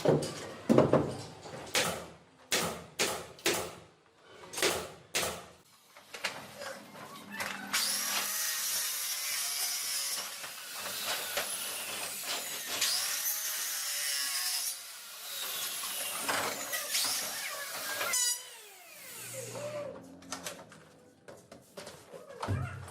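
A handheld power tool working wood. First come sharp knocks and taps for about six seconds, then the tool runs in about three stretches, its pitch rising as it spins up and falling as it winds down. A few more knocks follow near the end.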